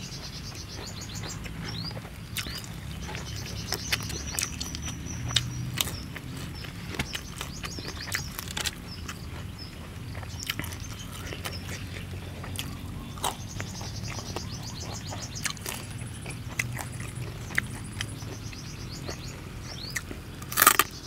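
Eating roasted field rat with crispy skin: scattered small clicks and crackles as the bones are picked apart and chewed, then a louder run of crunches near the end as a crispy piece is bitten. Birds chirp in the background.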